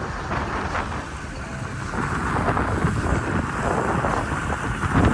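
Wind buffeting the microphone: an irregular, gusty rumble and rush that grows louder near the end.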